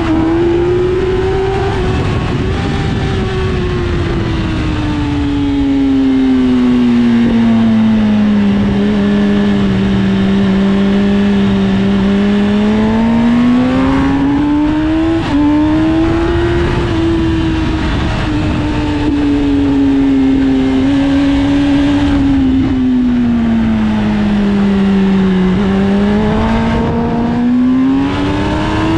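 Sport motorcycle engine at speed on a race track, its pitch rising and falling slowly as the revs build and ease through corners, with a steady rush of wind over it.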